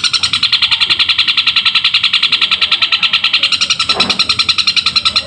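Long-tailed shrike (cendet) singing a fast, unbroken run of high chirps imitating house sparrow calls, about nine notes a second, in its continuous fighting-song style. A short low thump about four seconds in.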